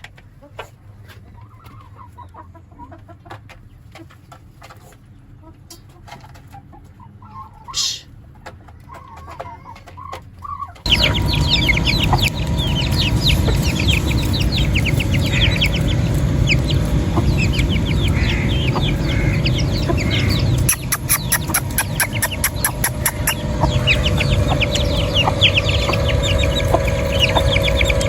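Chickens clucking and chirping. Quiet with a few clicks at first, then suddenly much louder about eleven seconds in, with many rapid short, high chirps over a noisy background.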